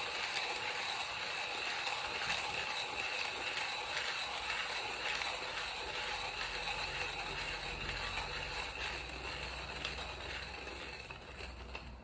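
Timemore C2 hand coffee grinder being cranked, its steel conical burrs crushing coffee beans with a steady grinding rasp and faint clicks. It dies away near the end as the beans run out.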